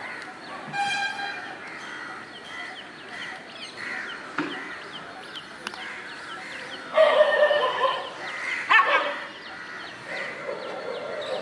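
Small birds chirping steadily outdoors, with a short high call about a second in and a loud, drawn-out animal call about seven seconds in, then a brief sharp call near nine seconds.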